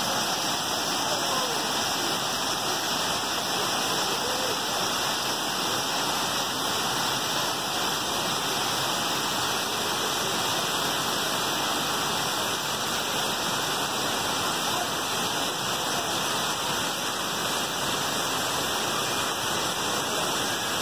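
Waterfall pouring over rocks: a steady, unbroken rush of falling water.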